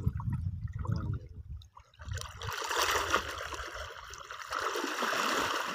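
River water sloshing and splashing around people wading chest-deep and hauling a net. A low churning at first, then from about two seconds in a steady rush of splashing water.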